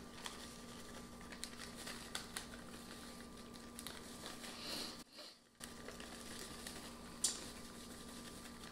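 Faint rustle of a plastic cake-mix bag and light pattering of dry cake mix as it is shaken and spread over peaches in a baking dish, with small ticks and a steady faint hum underneath. The sound nearly cuts out for half a second about five seconds in.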